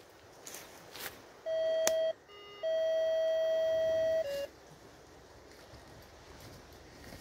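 Metal detector's electronic tone: a short beep of about half a second, a brief lower beep, then a long steady beep of about a second and a half that steps slightly lower in pitch just before it cuts off.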